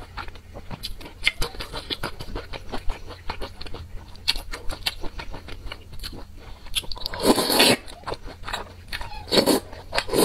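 Close-miked chewing and wet mouth clicks from someone eating wide flat noodles in a spicy sauce. Two loud slurps come through, one about seven seconds in and another near the end.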